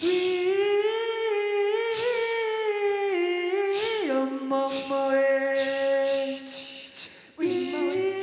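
A cappella singing: one man's voice holds long, sliding 'wee-ee' notes and steps down in pitch about four seconds in, while another voice adds short hissing 'chi' sounds like a hi-hat. After a brief dip near the end, more voices come in on lower notes.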